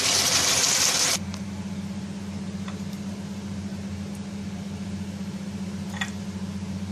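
Steady hiss of a wok of catfish and eggplant cooking on the stove, cut off abruptly about a second in. After it a quieter steady low hum runs on, with a couple of faint ticks.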